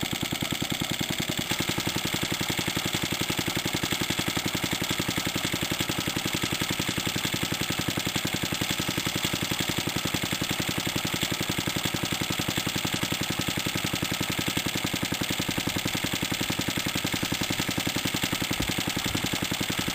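Vintage Suffolk stationary engine running steadily with an even, rapid beat, belt-driving a small single-cylinder air compressor that is pumping up a garden pressure sprayer.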